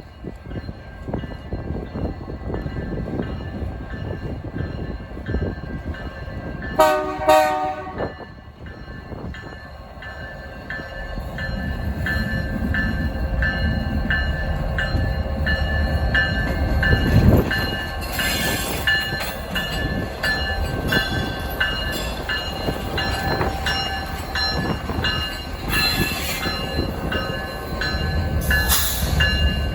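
Freight train locomotive sounding two short horn blasts, then the train rumbling past with the steady clicking of its wheels over the rails.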